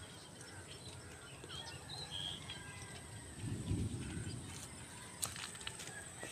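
Faint, scattered bird chirps over a thin steady high tone, with a short low rumble a little over three seconds in.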